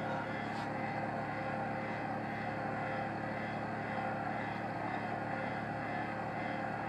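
A boat's engine running steadily, a constant mechanical drone with a few fixed tones over it.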